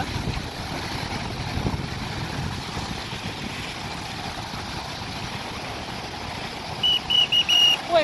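Surf breaking on the shore, with wind on the microphone. Near the end, a lifeguard's whistle gives four quick short blasts, the warning to a man going in to swim while the red no-swimming flag is up.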